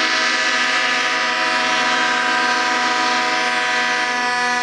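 Many diesel locomotive air horns blowing at once in one long held blast, a dense chord of steady tones.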